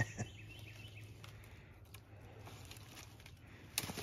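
Dry leaves and brush rustling and crackling as someone kneels and shifts over a downed deer, with a few sharp twig snaps, one at the start and a small cluster near the end.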